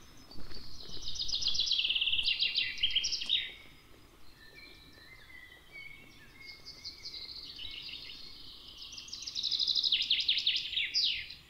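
A songbird singing twice, about eight seconds apart: each song is a fast run of repeated notes falling in pitch and ending in a short flourish, with fainter calls from other birds between the songs.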